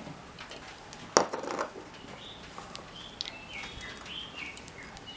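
Kitchen utensils and containers being handled: one sharp clink a little over a second in, followed by a brief clatter, with birds chirping in the background.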